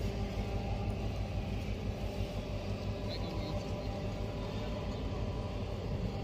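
Steady low engine rumble and hum of a boat under way.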